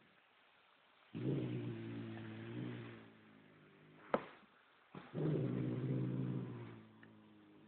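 Bengal cat growling low twice, each growl about two seconds long, with a sharp click between them. It is guarding a stolen scrap of chicken packaging.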